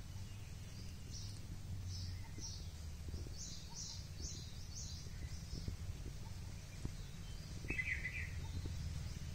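A small bird calling in short high chirps, about two a second, then a single brief lower, buzzier call near the end, over a steady low rumble.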